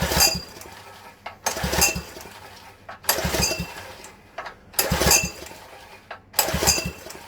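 Honda GX160 engine on a plate compactor being pull-started: five recoil pulls about a second and a half apart, each turning the engine over briefly with a metallic rattle, without it catching.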